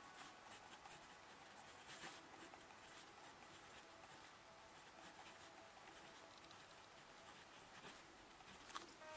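Pilot 78G fountain pen's steel nib scratching faintly across notebook paper, writing in short strokes.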